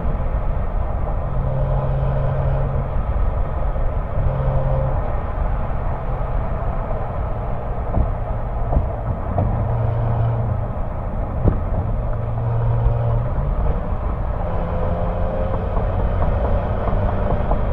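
2003 Porsche Boxster S's 3.2-litre flat-six exhaust at a steady highway cruise, picked up by a microphone mounted outside near the rear exhaust, with wind and road noise under a low drone.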